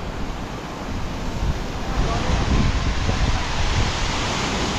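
Gusty storm wind buffeting the microphone over a steady rushing hiss, growing louder about two seconds in.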